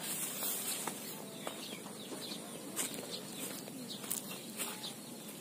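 Faint rural outdoor ambience: scattered short bird calls over a steady high hiss.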